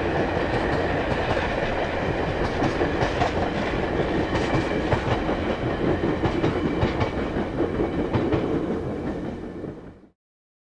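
Stainless-steel passenger cars of VIA Rail's Canadian rolling past at speed, a steady rumble with the wheels clicking over the rail joints. The sound fades out just before the end.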